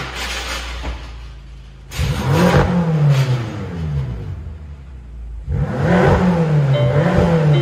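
BMW M5's twin-turbo V8 being revved while stationary: two double throttle blips, the engine pitch rising and falling each time, about two seconds in and again about five and a half seconds in, with quieter running in between.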